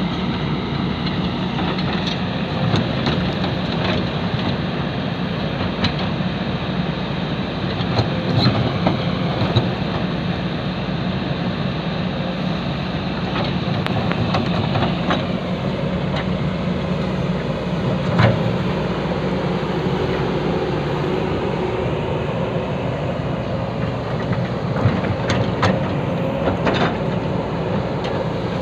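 Excavator's diesel engine running steadily, with a faint whine that rises and falls and a few irregular metal clanks.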